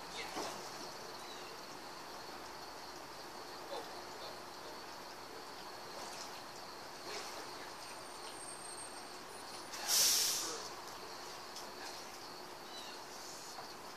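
Outdoor ambience: a steady hiss with faint, scattered bird calls, and one short, loud rush of noise about ten seconds in that fades within a second.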